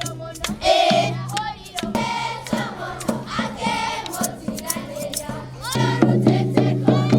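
Music with a group of voices singing over a steady low drone, and a regular beat of knocks coming in near the end.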